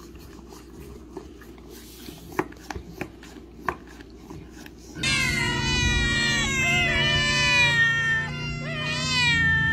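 Faint scattered licking clicks from a dog lapping at a small cup. About halfway in, several cats start meowing at once, loud overlapping wavering meows.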